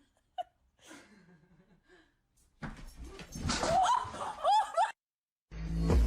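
Laughter, loud and high-pitched, with repeated rising-and-falling pitch, starting about two and a half seconds in and cutting off suddenly near five seconds. Near the end a deep low sound comes in under more voice.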